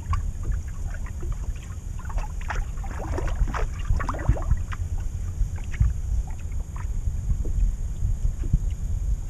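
Wind buffeting the microphone over a steady low rumble, with water lapping and slapping against a boat's hull in short irregular splashes, busiest about three to four seconds in.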